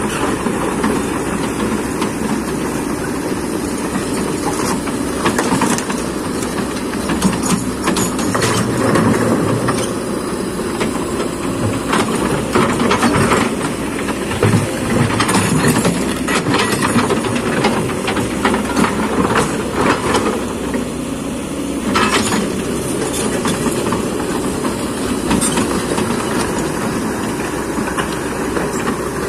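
Kobelco hydraulic excavator running steadily under work, with a series of sharp metallic clanks and knocks over the engine noise, thickest about halfway through.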